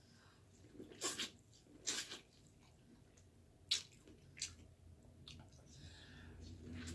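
Faint wet eating sounds: chewing with a few separate lip smacks.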